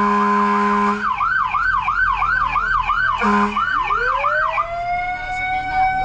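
Emergency-vehicle horn held for about a second, then a siren yelping at about three cycles a second, cut by a short horn blast. Near the end a siren wail winds up in pitch and holds, heard from inside a fire truck's cab.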